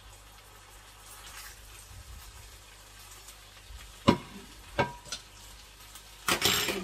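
Faint frying sizzle from a pan on the stove, with two sharp ringing clinks of a metal fork against cookware about four seconds in. A brief loud noisy burst near the end.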